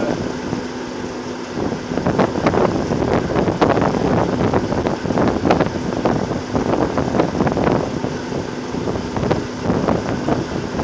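Rig machinery running loudly on an oil well rig floor, with wind buffeting the microphone and scattered short clanks.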